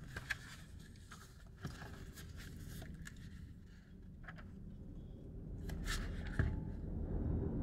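Paper pages of a paperback book rustling and flicking as it is leafed through and handled, with a few light taps. A low rumble swells in over the last few seconds and becomes the loudest sound.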